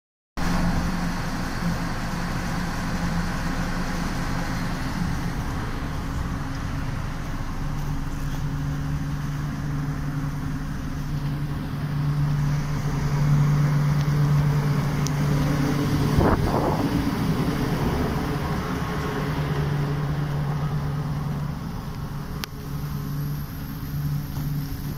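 ED4M electric train standing with its underfloor equipment running: a steady low hum whose tone drops out and returns several times. About sixteen seconds in there is a brief whine that rises and falls.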